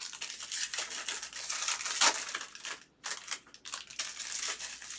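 Plastic wrapping on trading card boxes crinkling and tearing, with a brief pause about three seconds in.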